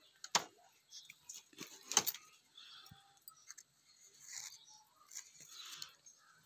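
Gourd vines and leaves rustling as a hand brushes through them on a bamboo trellis, with scattered light clicks and two sharper clicks, about a third of a second in and about two seconds in.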